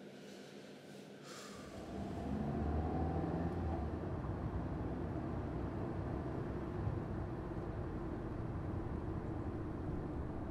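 Steady low rumble of a moving vehicle heard from inside its cabin, starting about two seconds in after a brief hiss.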